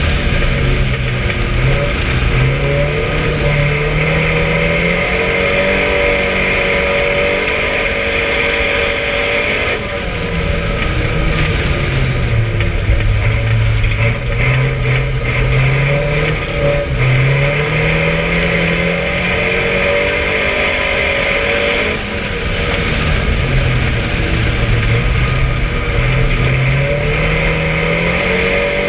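Race car engine heard from inside its stripped-out cabin, climbing in pitch as it accelerates along the straights and dropping sharply twice, about ten seconds in and again past twenty seconds, as the driver lifts off for the bends, under steady road and tyre noise.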